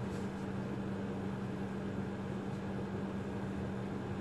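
A steady low electric hum over an even hiss of room background noise, unchanging throughout.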